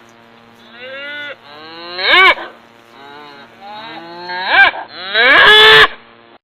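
Cattle mooing: four calls, a faint one first and then three loud ones, the last the longest.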